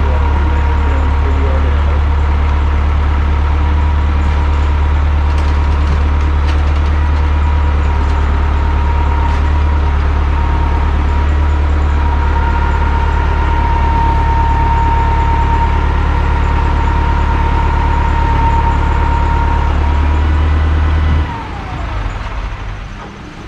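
A large engine running steadily at speed with a constant high whine over a deep hum. About 21 seconds in it is throttled down or disengaged: the level drops and the whine falls in pitch.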